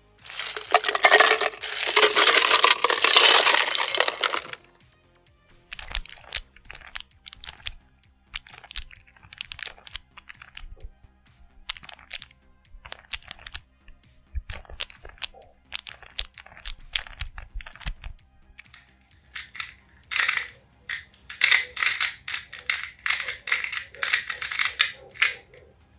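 Plastic Rubik's cube being turned: a fast run of rattling layer turns, then many single clicking turns, then another quick flurry of clicks near the end.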